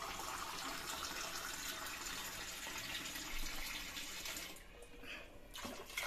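Water being poured in a steady stream into a pot of hot mushroom masala, as the water for the biryani rice goes in; the pouring stops about four and a half seconds in.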